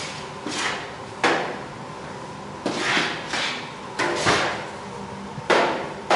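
Long metal paddle scraping and knocking against the side of a large stainless steel cooking kettle as grated onion is stirred, in a string of sharp, irregular strokes that each fade quickly.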